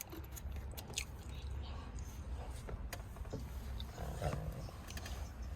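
Scattered small clicks and rustling handling noise as the airbag wiring connectors behind the steering wheel are worked loose and unplugged, over a steady low hum.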